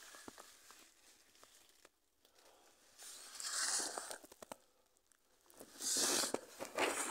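Clothes and body scraping and rustling against rock in a tight cave squeeze. It comes in two spells, about three seconds in and again near the end, with a few small clicks of grit or stone between them.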